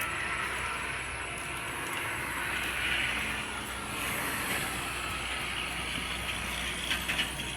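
Toll-road traffic going by: the tyre and engine noise of passing vehicles, swelling and easing as they pass, with a few brief clicks near the end.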